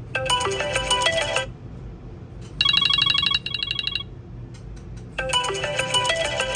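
iPhone 13 loudspeaker playing ringtone tones while its sound is tested after repair. First a short melodic chime phrase, then a fast run of repeated bright beeps in the middle, then another melodic phrase starting near the end.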